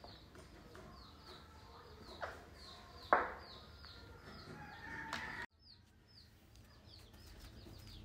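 Birds calling: a rapid run of short, high, falling chirps repeating throughout, with one louder sharp call about three seconds in. The sound drops out briefly about five and a half seconds in.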